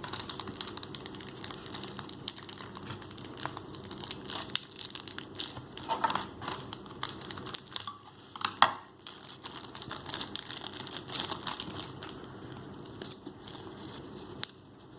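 Paper and plastic packaging of an earphone box being handled, crinkling and rustling with many small clicks; a sharper click about eight and a half seconds in.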